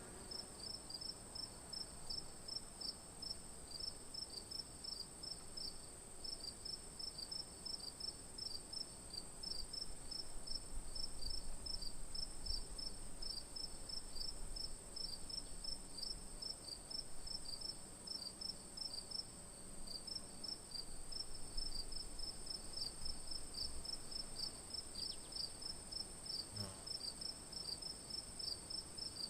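Crickets at night: one keeps up a steady, very high trill while another chirps in quick, evenly repeated pulses a little lower in pitch.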